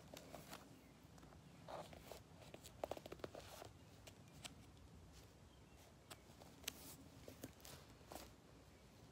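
Near silence, broken by faint scattered rustles and soft clicks of a book's paper pages and the bedding being handled, a small cluster about two to three and a half seconds in and a few single ones later.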